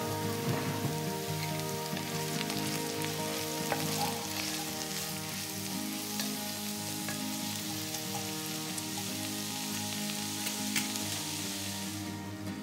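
Sliced carrots and onion sizzling in an enamelled cast-iron pot as they are stirred with a wooden spoon, with background music underneath. The sizzle fades out near the end.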